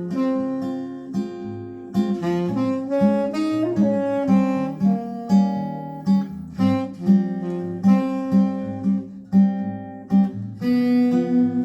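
Acoustic guitar music played back through a Philips 22AH386 amplifier and Philips hi-fi speakers: a run of plucked notes, each ringing and fading.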